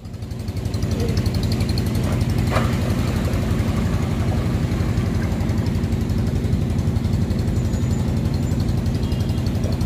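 A vehicle engine idling steadily close by, with a fast, even pulse.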